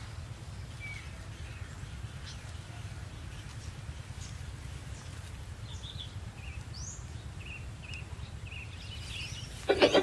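Small birds chirping faintly over a steady low outdoor rumble, a short call repeated about twice a second in the second half. A few loud sharp clicks near the end.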